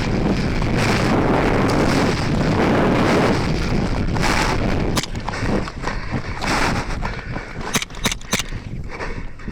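Wind buffeting the microphone for about five seconds, then dropping away, followed by a few sharp snaps, a quick run of four near the end: airsoft shots.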